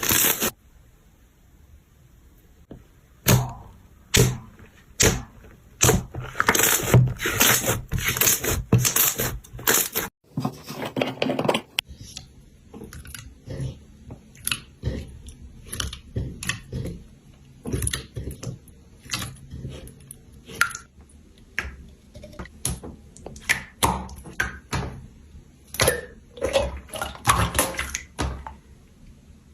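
Slime being squeezed and crushed by hand: loud crackling crunches for several seconds, then after a break a run of softer sticky clicks and pops that come faster near the end.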